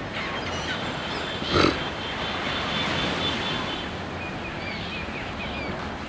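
Steady wash of surf breaking behind a resting flock of gulls and terns, with one brief loud burst about one and a half seconds in and a few short, high bird calls in the second half.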